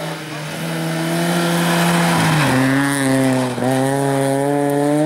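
Alfa Romeo 147 rally car's engine running hard at high revs as the car drives by. The engine pitch falls about halfway through and dips sharply again about a second later.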